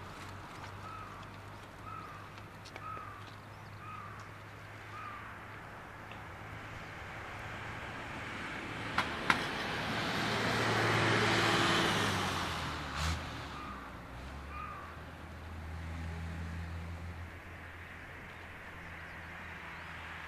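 A crow cawing, five calls about a second apart, then twice more later on. In the middle a broad rush of airliner jet noise swells and fades, the loudest sound, with two sharp clicks just before its peak.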